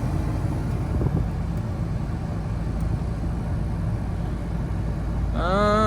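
Idling Ford Ranger engine (the 4.0 V6) with the air-conditioning blower fan running as the AC is switched on. It is a steady low hum under an airy rush that grows slightly louder.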